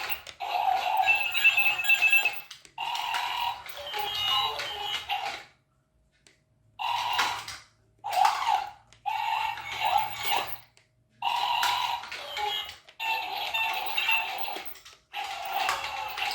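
Chad Valley remote control toy robots playing their electronic robot sound effects: beeping, warbling tones in bursts of one to two seconds with short breaks, and a silence of about a second near the middle.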